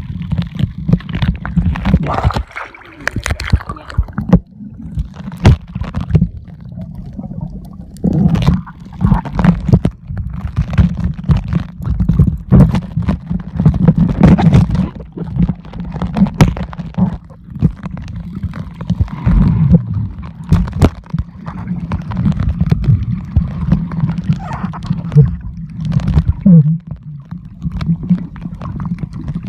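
Muffled underwater sound picked up by a submerged camera: a dense low rumble of moving water with gurgling and frequent sharp knocks and clicks.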